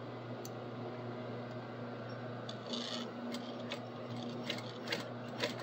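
Industrial sewing machine's motor humming steadily while the machine stands idle, with a brief rustle and small clicks as nylon webbing is shifted under the presser foot; the clicks come more often in the last two seconds.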